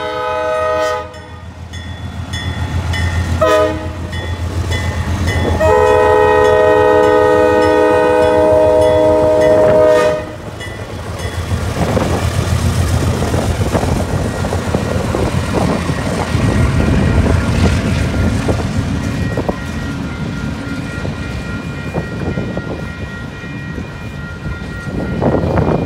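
Diesel freight locomotive horn sounding the grade-crossing warning over the rumble of its engine: a blast ending about a second in, a short blast a few seconds later, then a long blast of about four seconds. After that, the freight cars roll past, their wheels clattering over the rail joints.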